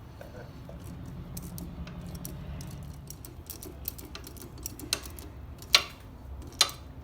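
Small metallic clicks and clinks of a 1/4-inch drive ratchet with a 12-point socket working a rear brake caliper pin loose, with two louder knocks near the end.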